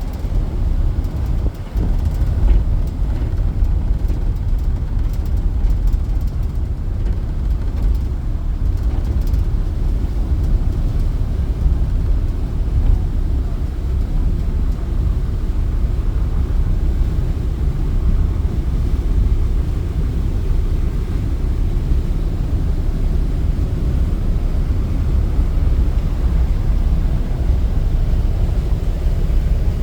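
Steady low rumble aboard a Mersey ferry under way: the vessel's engines and hull noise.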